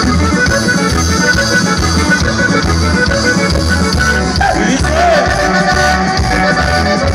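Live norteño band music played loud over a stage PA system, with a steady bass beat under sustained instrument lines.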